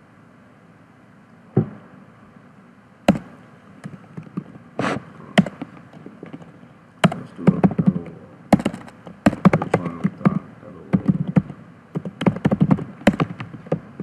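Typing on a computer keyboard: a few separate keystrokes at first, then quicker irregular runs of key presses through the second half.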